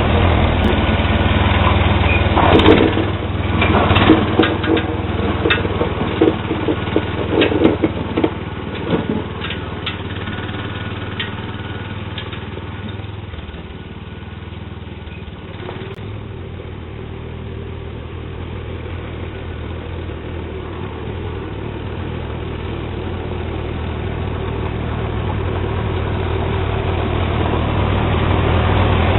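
Sears Suburban SS12 garden tractor's engine running steadily under load while plowing snow. A run of sharp clanks and knocks sounds over it in the first ten seconds or so. The engine fades about halfway through and then grows gradually louder toward the end.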